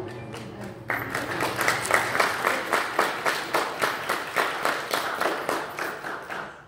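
Congregation applauding, starting about a second in and dying away near the end.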